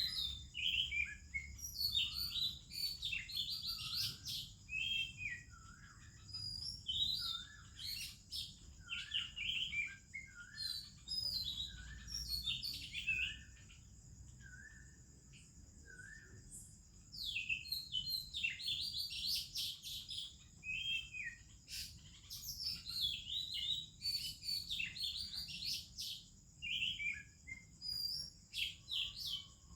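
Oriental magpie-robin singing: a varied run of short whistled and warbled phrases, pausing for a few seconds about halfway through before starting again.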